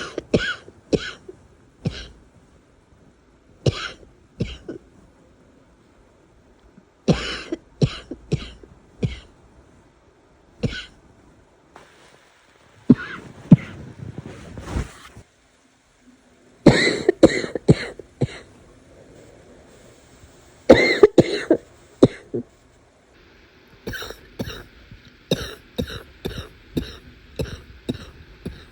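A person's barking cough coming in repeated fits of several short, sharp coughs each, with pauses of a second or more between fits and a quicker run of small coughs near the end.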